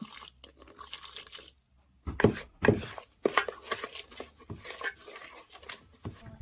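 Kitchen work: water poured and splashing into a bowl, with dishes knocking in irregular clatters, as flour is mixed with hot water to make a dough.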